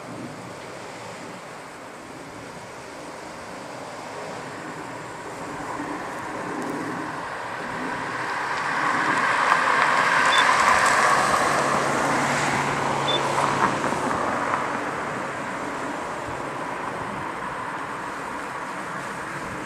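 Rolling noise of an approaching freight train hauled by an ÖBB Taurus electric locomotive: a steady rushing sound that swells to a peak mid-way, with a brief low hum and a few faint ticks, then eases off again.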